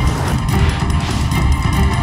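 Rock background music with guitar and bass guitar, loud and steady.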